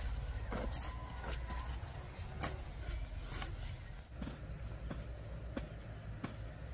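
Hand hoes chopping and scraping into dry, loose field soil: a string of short strikes roughly every half second to a second, over a low rumble that drops away about four seconds in.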